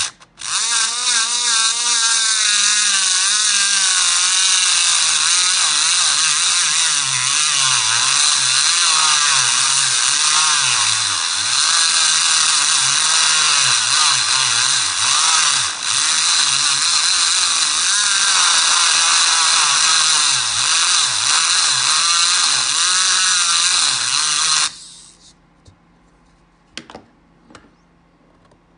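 Electric engraving pen buzzing loudly while held against a stripped screw in a MacBook Pro's bottom case, its pitch wavering up and down as it is pressed. It cuts out for a moment just after the start, then runs on until it stops about 25 seconds in, followed by a few faint clicks.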